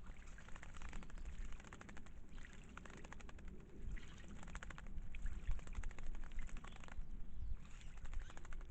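Small garden birds splashing in a birdbath: bursts of rapid fluttering splashes, several times over, with pauses between.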